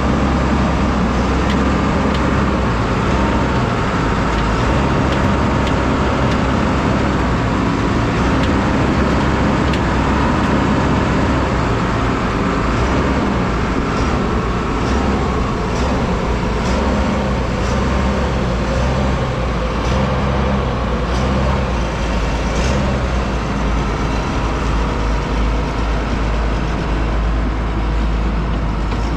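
Diesel engine of a Vögele asphalt paver running steadily, a low, even rumble with a few faint clicks now and then.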